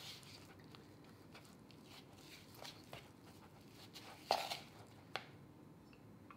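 A spoon stirring stiff royal icing in a ceramic bowl: faint, soft scraping and squishing, with a louder scrape a little past four seconds and a sharp click of the spoon against the bowl about a second later.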